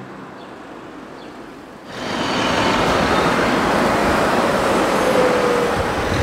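Street traffic noise: a steady rush of passing vehicles. It starts suddenly and loud about two seconds in, after a quieter stretch.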